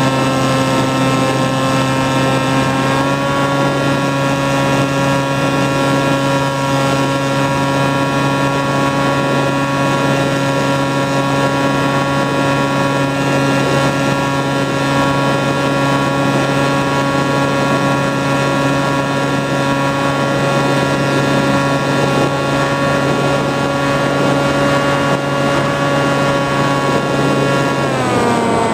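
Motor and propeller of an FPV flying-wing model plane, recorded on board in flight: a steady whine that steps up slightly in pitch about three seconds in and drops lower near the end.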